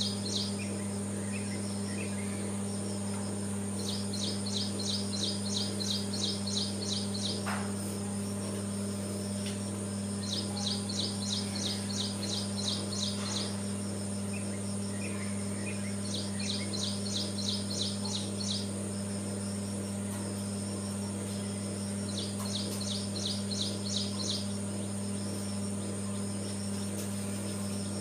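Outdoor ambience: a high, rapidly pulsed trill, each two to three seconds long, repeats about every six seconds, four times in full, over a steady low hum and a constant thin high tone.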